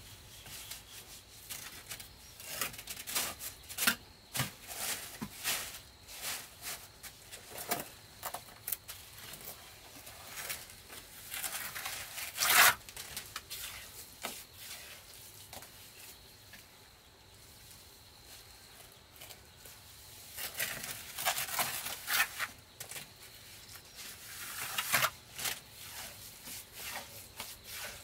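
Steel trowel scraping wet cement mortar, scooped from a pile on a plastic tarp and spread onto a brick wall, in irregular scrapes and taps with the tarp crinkling now and then.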